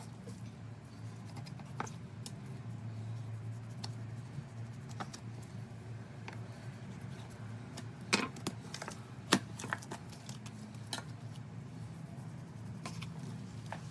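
Boning knife trimming fat from a raw beef brisket on a plastic cutting board: soft cutting and scraping, with a few sharp clicks scattered through, over a steady low hum.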